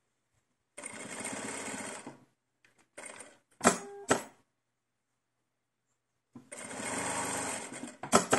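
Domestic sewing machine stitching a seam in two short runs, stopping and restarting in between. A few sharp clicks come in the pause between the runs, and again near the end.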